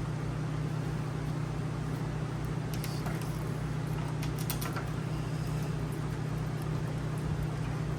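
Steady low hum of background machinery, with a few faint clicks and taps about three seconds in and again near the middle, as of model-plane parts being handled.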